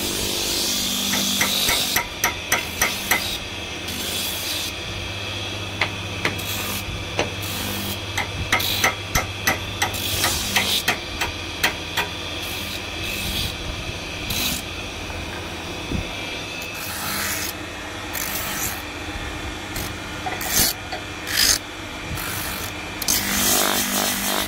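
A wooden spatula sanded on a motor-driven drum sander: a steady motor hum under the rasp of the abrasive drum on wood. Runs of short scraping strokes, about three a second, come a couple of seconds in and again around the middle as the piece is worked against the drum.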